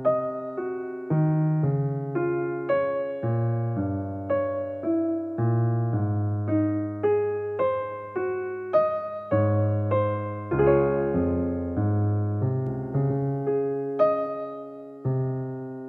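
Background music on solo piano: slow, gentle notes struck one after another, each left to ring and fade.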